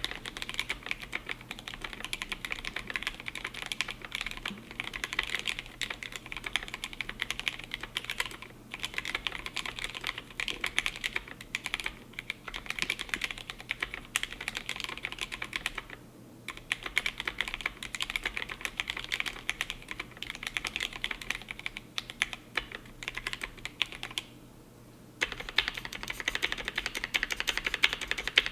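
Typing on a GMMK Pro mechanical keyboard with a polycarbonate plate and Gateron Ink Black V2 switches lubed with 205g0 and filmed: fast, continuous runs of keystrokes. The typing pauses briefly three times, the longest pause coming near the end.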